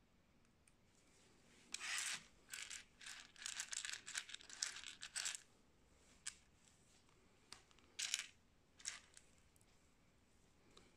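Small Lego-compatible plastic bricks clicking and clattering as they are picked through in a pile and pressed together. A dense flurry of sharp clicks comes a couple of seconds in, followed by a few single clicks.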